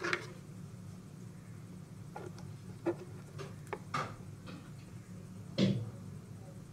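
Scissors and hands handling on a wooden tabletop while a hole is poked through a ribbon with the scissor point: scattered small clicks and taps, with a louder knock about five and a half seconds in, over a steady low hum.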